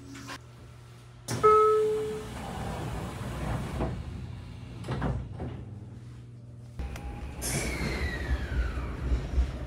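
Sliding passenger door of a JR Kyushu 817 series train closing: a short ringing tone starts loudly about a second in, followed by two knocks as the door panels shut. Near the end, heard from the platform, a hiss and a whine falling in pitch as the train's traction equipment starts it moving.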